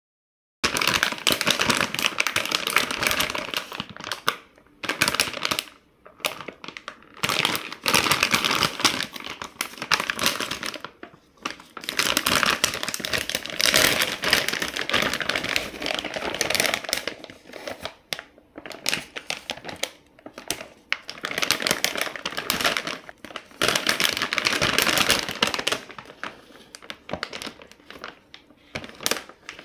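Thin plastic carry bag of a Costco rotisserie chicken crinkling and rustling as hands open it and pull the chicken out. It comes in irregular bursts with short pauses between them.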